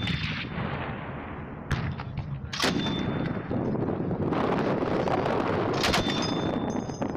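Tripod-mounted large-calibre machine gun firing: three sharp reports about a second and three seconds apart, with a heavy rolling rumble filling the gaps between them.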